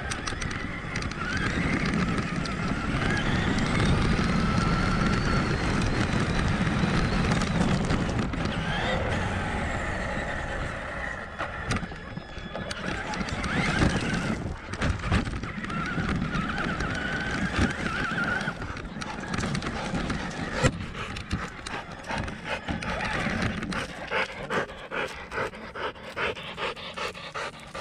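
On-board sound of a Traxxas Summit RC monster truck driving over rough gravel: its electric motor and gear drivetrain whine, rising and falling in pitch with the throttle, over the crunch of tyres on stones and the knocks and rattles of the chassis and suspension. Near the end the running grows quieter and more broken into short bursts.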